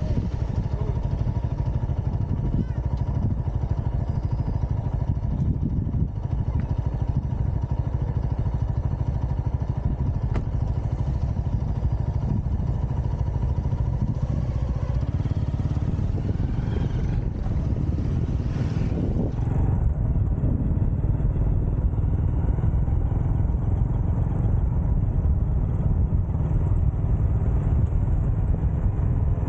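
Motorcycle being ridden at a steady pace, its engine and road noise mixed with a heavy, even rumble of wind on the microphone.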